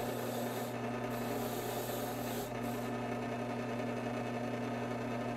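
A small power tool's motor running steadily, with an abrasive scrubbing hiss against the work for about the first three seconds, then only the motor hum.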